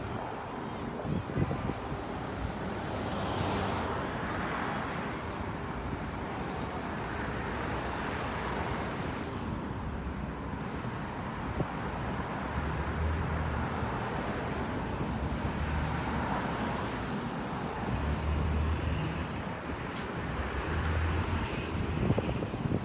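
Steady city street traffic noise, with a few low rumbles in the second half.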